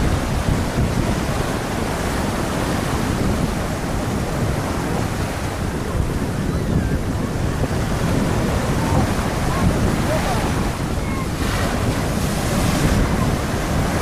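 Sea waves washing onto the shore under strong wind, with wind buffeting the microphone throughout. There is a louder hiss of surf about eleven seconds in.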